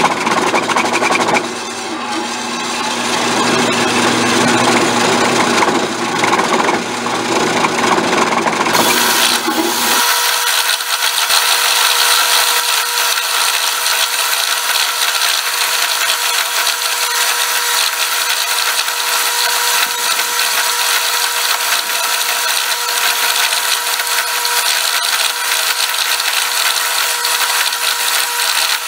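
Central Machinery 7x12 horizontal metal-cutting bandsaw running and cutting through a rectangular steel tube, with bad vibration in the blade. About ten seconds in, the sound turns higher and steadier, with a steady tone, as the cut plays at four times speed.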